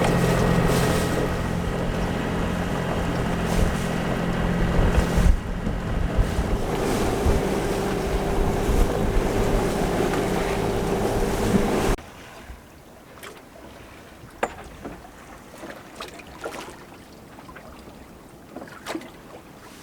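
Sailboat motoring in wind and rain: a steady engine drone under wind and water noise. About twelve seconds in it cuts to a much quieter scene with a few scattered light knocks.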